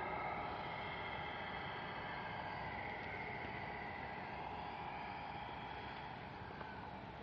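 Radio-controlled scale tractor-trailer truck driving, its electric motor giving a steady hum and whine that slowly fades as the truck moves away.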